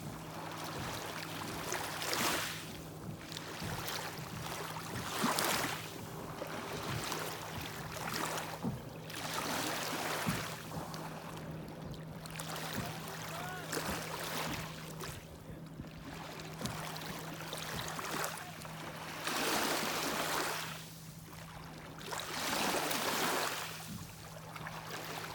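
Small lake waves washing against the shore, each wash swelling and fading every few seconds. A steady low hum runs underneath.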